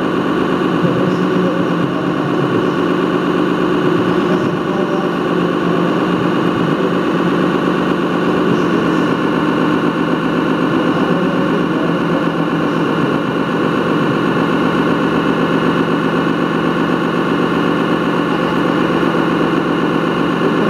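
1:8 scale model vehicle running steadily along its course, a continuous engine-like hum with several held tones and no change in pace.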